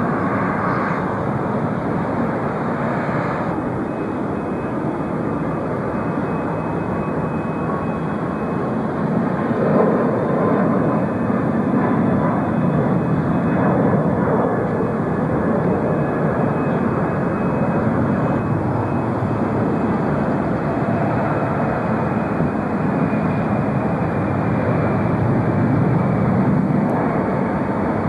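Jet airliners taking off and climbing out: a steady, continuous jet engine rumble with no single sharp event, interrupted briefly where the recording cuts from one departure to the next.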